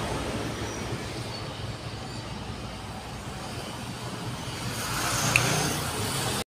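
Steady low background hum and rumble, with a brief faint click about five seconds in, cutting off abruptly to silence near the end.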